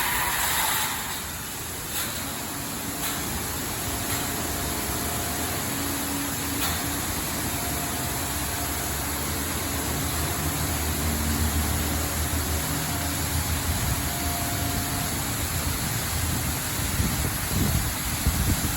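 Laserwash 4000 touchless car wash machinery running: a loud spray hiss that dies away in the first second or so, then a steady rumble and hiss with a faint whine that comes and goes. The wash is said to have a bad motor.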